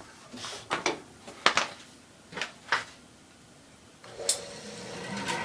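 A few scattered knocks and clicks, then about four seconds in a click as a shop-built wooden bandsaw is switched on for its first run, its motor and wheels spinning up into a steady hum with several level tones.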